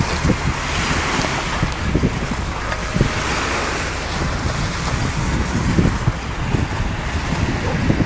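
Wind buffeting the microphone in irregular low gusts over the steady wash of sea surf.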